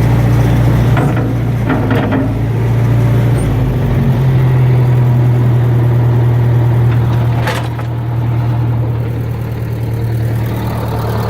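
New Holland skid steer's four-cylinder engine idling steadily with a low, even hum. A few brief knocks sound about two seconds in and again past the middle.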